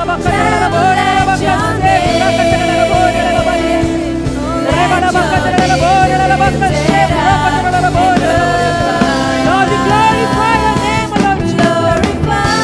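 Christian worship song: a solo voice singing a melody over steady instrumental accompaniment.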